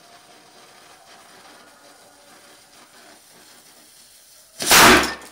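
Small homemade model cannon, its charge the powder from firecrackers packed in heavily, hissing faintly as it burns and sparks, then firing with a single loud bang about four and a half seconds in.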